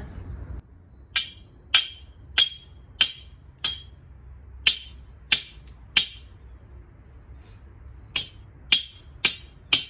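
Repeated hammer blows, roughly two a second, each with a short ring. About eight strikes, a pause of about two seconds, then four more near the end.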